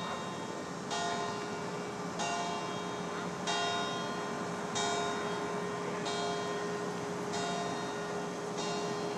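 A church bell tolling slowly, one strike about every 1.3 seconds, each stroke ringing on into the next over a steady hum.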